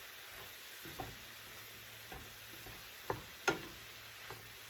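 Cauliflower rice and scrambled eggs sizzling gently in a frying pan while being stirred, with a utensil scraping and knocking against the pan several times, the loudest knock about three and a half seconds in.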